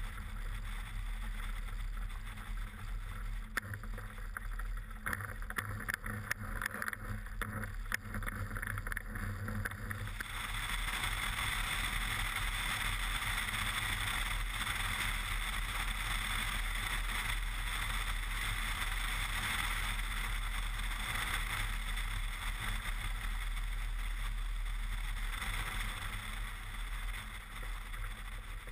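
Cessna 170B's engine and propeller running as the plane rolls on the ground on tundra tires, with wind rushing over the fuselage-mounted microphone. Scattered knocks from the gear bumping over rough grass in the first ten seconds; about ten seconds in, the sound turns louder and more rushing as the plane rolls on the paved runway.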